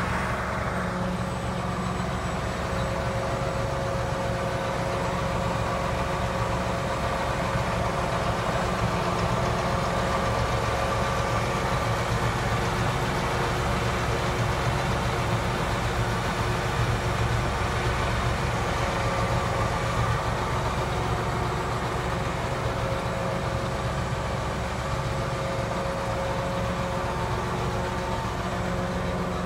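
John Deere 8310R tractor's 9.0 L diesel engine idling steadily.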